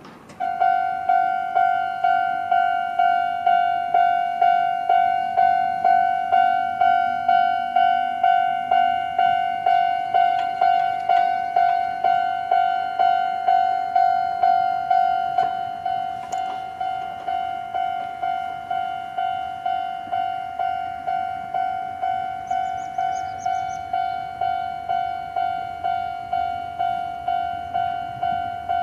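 Japanese level-crossing warning alarm: an electronic bell tone ringing about twice a second, which starts suddenly about half a second in. About halfway through it drops to a lower volume and keeps ringing steadily.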